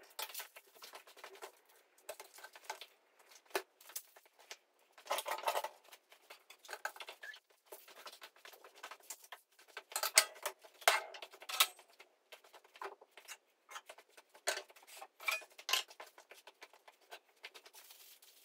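Plastic packaging crinkling and rustling in the hands as an item is unwrapped, in uneven crackles with louder stretches about five seconds and ten seconds in.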